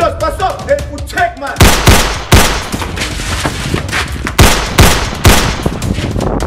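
Gunfire: a rapid string of loud handgun shots begins about a second and a half in, the biggest of them about six in four seconds. Background music runs underneath throughout.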